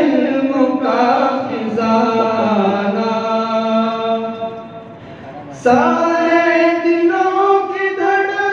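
A naat sung by an unaccompanied voice in long, drawn-out held notes. The phrase dies away about five seconds in, and a new one begins at a higher pitch.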